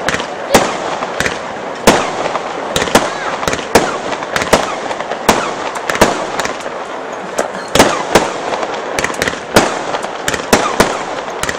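Fireworks display: a quick, irregular string of sharp bangs, about two a second, as small aerial shells burst one after another. A constant noisy background fills the gaps between bangs.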